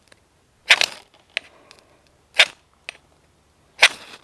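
Ferrocerium rod scraped hard three times, about a second and a half apart, each stroke a short rasping scrape throwing sparks to light tinder.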